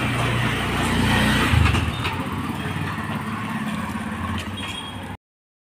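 A motor vehicle's engine running close by: a steady low hum that fades out about two seconds in, leaving rough street noise. The sound cuts off abruptly near the end.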